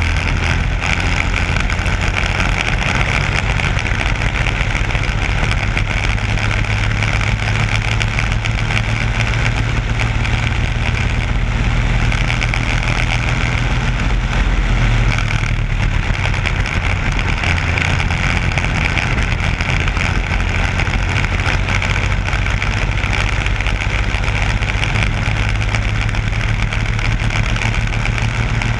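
Briggs & Stratton Animal single-cylinder four-stroke kart engine running at racing speed, heard from on board the kart. Its note dips briefly about halfway through, then climbs again.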